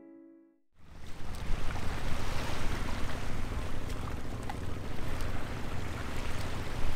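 Small waves washing onto a sandy harbour shore, coming in suddenly just under a second in as a steady rushing wash with a low rumble and a faint steady hum underneath.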